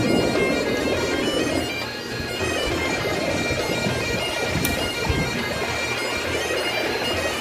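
Background music with steady held tones, a reedy drone-like sound.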